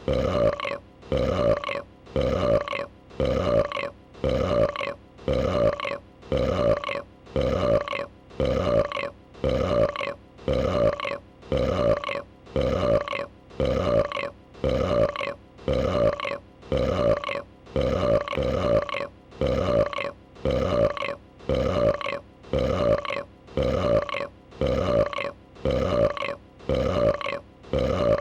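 A female dragon's burp sound effect, looped: the same short burp repeats at an even pace of about once a second.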